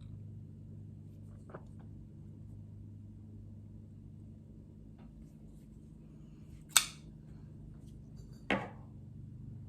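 Two sharp clicks from a folding pocket knife being handled, the louder one about seven seconds in and a second about a second and a half later, with a faint click early on, over a low steady hum.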